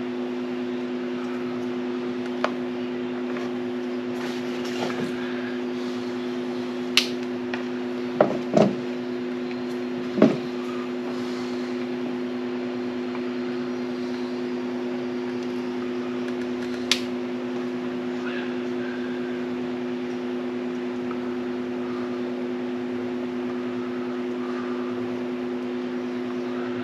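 A steady machine hum, like a shop fan, runs throughout. Over it come a few sharp clicks and small knocks of hand work on wires and butt connectors, a cluster of them about eight to ten seconds in.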